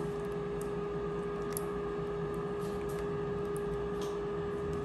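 Thick stroganoff sauce simmering in a pot, with a few faint pops, over a steady hum.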